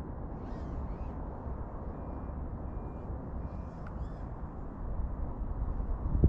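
Steady low rumbling noise, with faint high animal calls about half a second in and again around three and a half seconds in.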